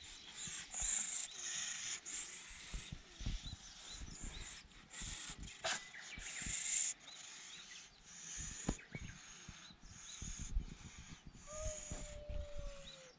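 Cat hissing over and over in short bursts. Near the end it gives one long, slightly falling moaning growl.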